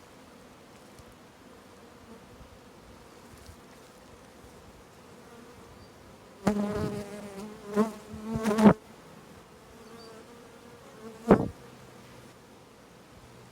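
A swarm of honeybees buzzing steadily around the hive. About six and a half seconds in, a bee buzzes loudly close to the microphone for about two seconds, and near the end another brief loud buzz passes by.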